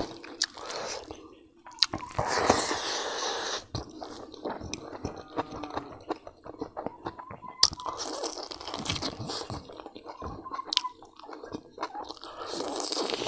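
A person chewing mouthfuls of rice, yam curry and roasted pork fat close to a lapel microphone: wet, squishy chewing full of small clicks and lip smacks, louder for a stretch about two seconds in and again near the end.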